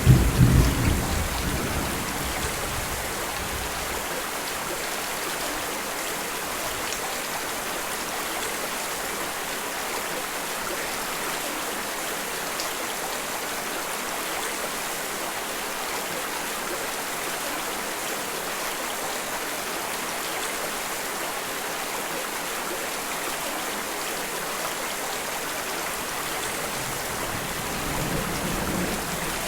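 Steady rain falling, an even hiss. A roll of thunder dies away over the first few seconds, and a faint low rumble swells briefly near the end.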